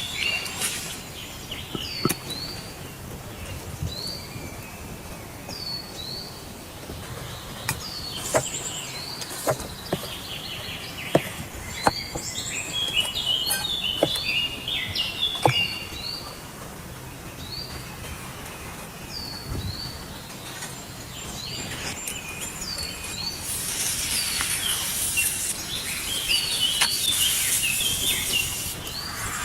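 Wild birds calling: a short falling chirp repeats about every two seconds, with bursts of quicker, more varied song in the middle and near the end. A few sharp clicks and a steady hiss lie underneath, and the hiss grows louder near the end.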